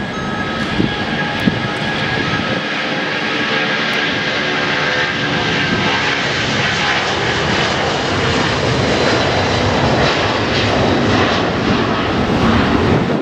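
Boeing 757 jet engines at takeoff power, a loud roar that builds steadily as the airliner rolls and passes. An intermittent electronic beeping fades out about a second in.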